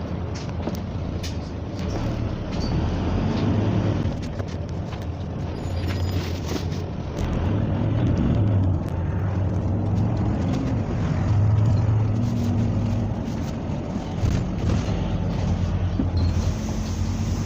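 Ride inside a moving bus: the engine drone and road rumble swell and ease as it drives, with scattered small clicks and rattles.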